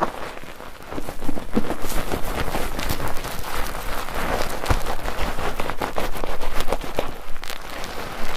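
Bar soap being worked into lather in a foaming net: continuous wet squishing with dense crackling of popping bubbles, growing louder about a second in.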